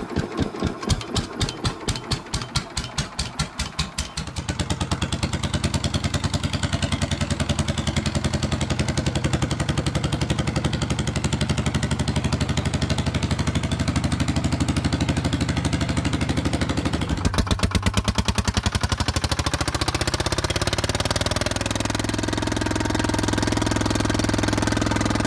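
Single-cylinder Detroit Diesel 1-71 two-stroke diesel running, its firing beats slow and distinct at first, then quicker and steadier from about four seconds in. Past the middle its speed drops and then rises again.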